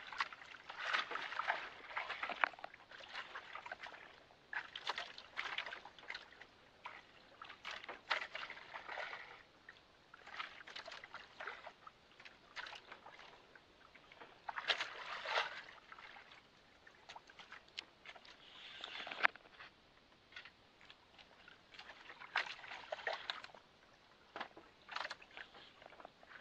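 Water lapping and sloshing against the hull of a small outrigger boat in irregular surges, with a few sharp knocks.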